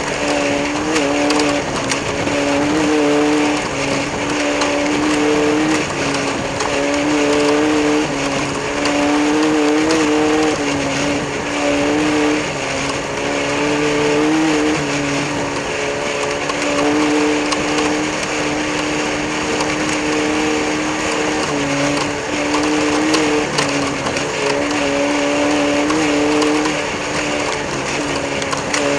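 An engine running steadily at high speed for the whole stretch, its pitch wavering slightly up and down without any big revs or drop-offs.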